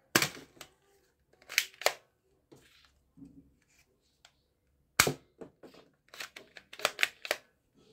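Sharp plastic clicks and clacks from a toy foam-dart pistol being loaded with a dart and cocked. They come in short clusters: one at the start, a pair about a second and a half in, and a quicker run of several near the end.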